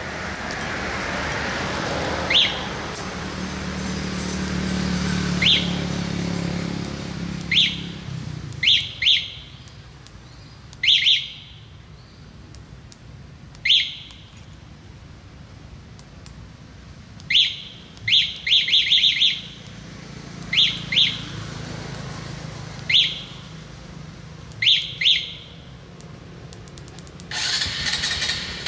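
A bird calling with short, sharp, high chirps every few seconds, some in pairs and once in a quick run of several. Under the first calls, a passing vehicle's engine rumbles and fades away.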